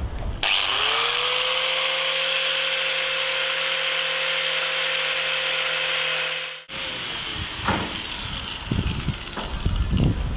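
An electric power tool is switched on about half a second in. Its motor spins up and runs steadily for about six seconds, then is switched off and winds down with a long falling whine. A few knocks and clatter follow near the end.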